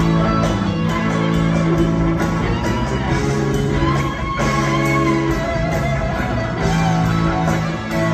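Live rock band playing: an electric guitar lead holds long sustained notes and bends one upward about four seconds in, over bass and drums with a steady cymbal beat.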